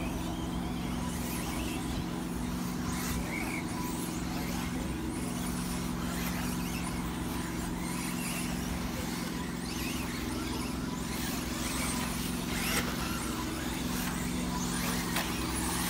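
Four-wheel-drive radio-controlled race cars running on a track, with brief high-pitched passes every few seconds over a steady low hum.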